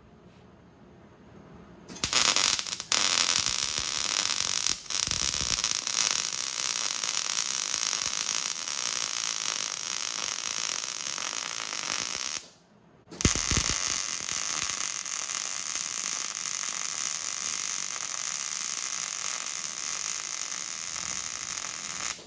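Hobart 140 MIG welder arc crackling steadily in two long weld runs, about ten seconds and nine seconds, with a short stop between them.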